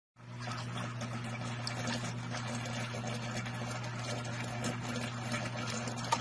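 Aquarium pump and filter running: a steady low hum under a constant bubbling, watery hiss, with one sharp click near the end.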